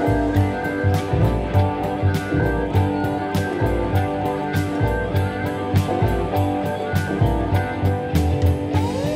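Background music: a guitar playing held notes over a steady drum beat.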